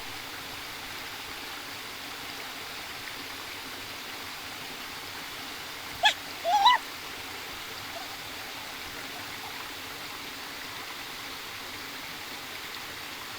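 Steady rush of flowing water. About six seconds in there are two short, high, rising squeaks.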